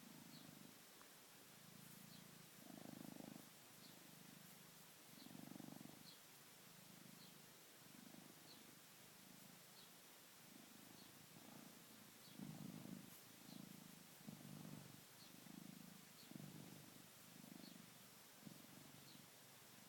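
Domestic cat purring in its sleep, faint and low, the purr swelling and fading with each breath about once a second in a snore-like rhythm.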